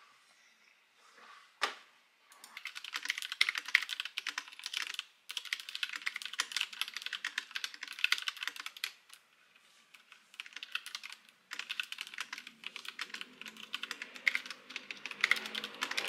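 Fast typing on a white mechanical keyboard: rapid runs of key clacks, pausing briefly about five seconds in and for about two seconds near the ten-second mark. A single sharp knock comes about one and a half seconds in, before the typing starts.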